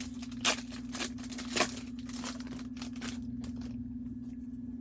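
Trading card pack wrapper being torn open and crinkled as the cards are handled: a string of short, sharp rustles, most of them in the first three seconds. A steady low electrical hum runs under it.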